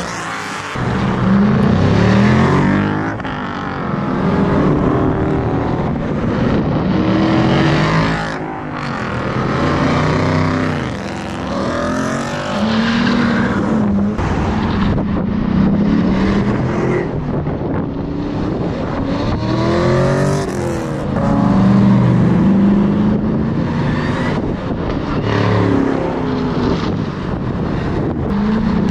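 V8 muscle car engines revving and accelerating, the engine pitch repeatedly climbing and dropping back as cars pull away and pass.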